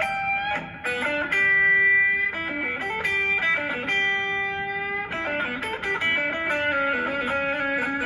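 Stratocaster-style electric guitar playing a solo blues riff: quick repeated picked notes, broken by two long held notes about a second and a half and four seconds in.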